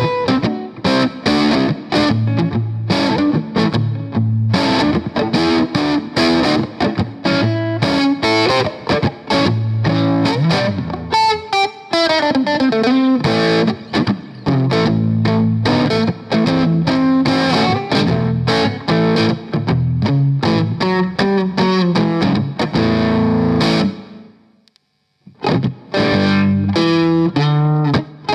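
Electric guitar played through a Boss BD-2 Blues Driver overdrive pedal, giving a driven, distorted tone: picked notes and chords with a quick run of notes about eleven seconds in. The playing stops briefly near the end, then starts again.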